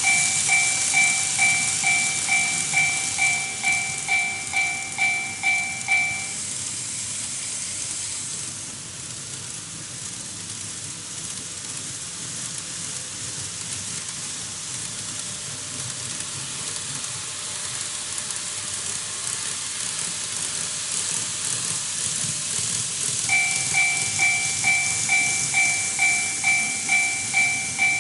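TOMIX Automatic Crossing II model level crossing sounding its electronic warning bell, a two-tone ding about twice a second. It stops about six seconds in and starts again near the end. Underneath, model trains run on the track with a steady hiss and faint rapid ticking.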